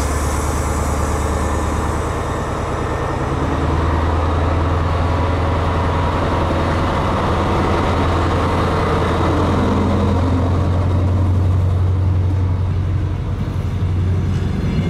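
Diesel passenger train heard from aboard, with a steady low engine hum and running noise throughout.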